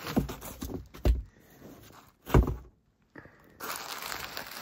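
A cardboard box and a bubble-wrapped bass body being handled: a few dull thumps, the loudest about halfway through, then bubble wrap crinkling near the end.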